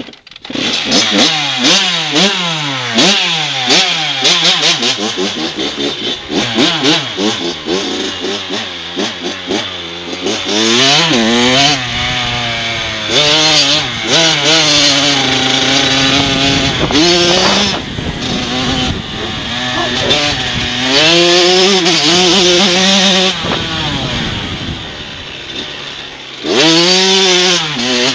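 Kawasaki KX105 supermini dirt bike's two-stroke engine, loud and close. It is revved in quick blips at first, then ridden hard, its pitch climbing and dropping over and over as the throttle opens and closes through the gears.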